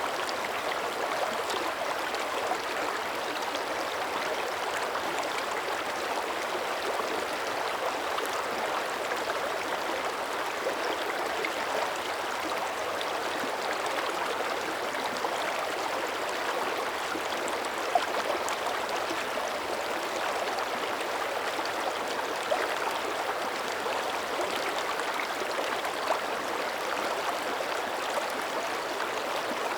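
Mountain creek's shallow water running over stones, a steady rushing and gurgling with a few brief louder splashes.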